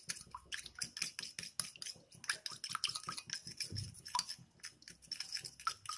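A metal spoon stirring sauce in a glass bowl: rapid, irregular light clinks and scrapes of the spoon against the glass.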